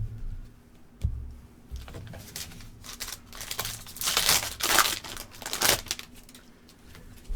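Trading-card pack wrapper crinkling and tearing as a pack is ripped open, in rapid crackly bursts that are loudest in the second half. Two low thumps come right at the start and about a second in.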